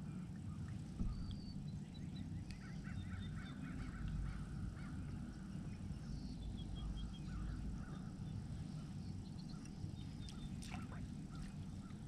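Birds calling in many short, repeated notes, over a steady low rumble.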